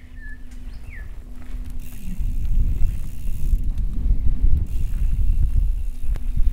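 Mountain bike rolling over a dirt trail, its tyres' low rumble growing louder as it approaches. A bird chirps briefly about a second in.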